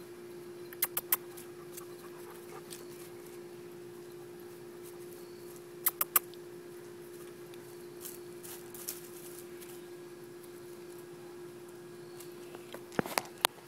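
Doberman Pinscher puppies at play: a few quick groups of sharp clicks and taps, three close together about a second in, three more about six seconds in, and a busier cluster near the end, over a steady low hum.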